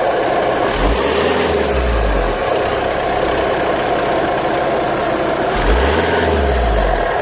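VW Golf 6 2.0 TDI diesel engine idling and revved up and back down twice, about a second in and again near the end. Under throttle it makes an odd noise between grinding and whistling, which the dealer suspects comes from a failing dual-mass flywheel.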